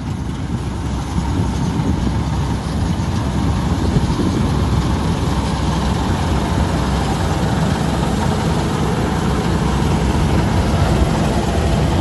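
Surindera 930 combine harvester running under load as it cuts standing paddy: a steady, loud din of engine and threshing machinery that grows a little louder in the first couple of seconds as it comes close, then holds.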